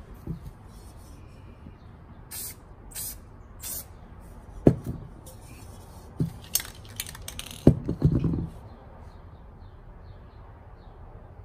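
Three short hisses of an aerosol spray can coating the inside of a clay pot, followed by a few sharp knocks and clunks as the pot and can are handled and set down on a hard surface; the knocks are the loudest sounds.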